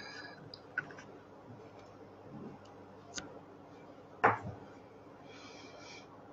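A few scattered sharp clicks and taps from a computer keyboard and mouse, the loudest a little past four seconds in, with a brief soft rustle near the end.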